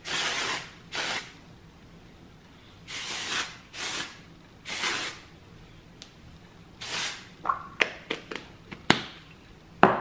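Aerosol can of Paul Mitchell Invisiblewear Undone Texture Hairspray spraying in about six short hissing bursts. Near the end come several sharp clicks and taps.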